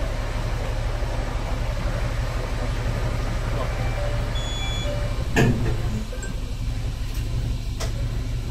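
Diesel railcar idling with a steady low engine hum, and a single loud clunk about five and a half seconds in.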